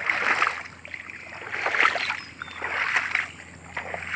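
Footsteps wading through shallow floodwater and grass, each stride giving a splashing swish, about one a second.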